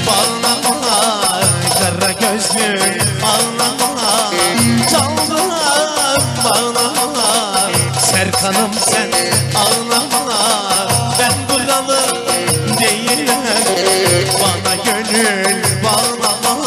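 Turkish çiftetelli dance music played live, instrumental: an ornamented, wavering lead melody over a steady, repeating low drumbeat.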